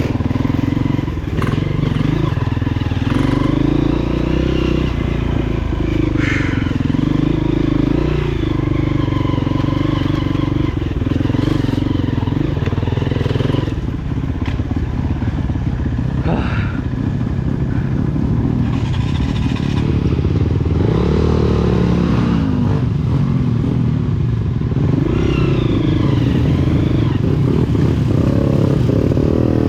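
Honda CRF230F trail bike's air-cooled single-cylinder four-stroke engine running on a test run after a fresh overhaul, its note rising and falling with the throttle, with occasional brief clatter.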